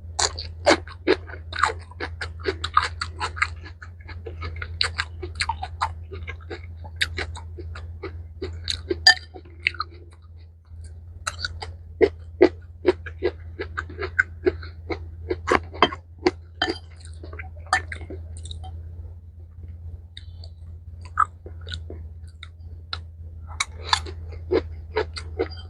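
Close-miked chewing of a mixed rice bowl with kimchi and pickled mustard greens: quick runs of short, sharp mouth clicks and crunches, thinning out for a few seconds before picking up again near the end. A steady low hum runs underneath.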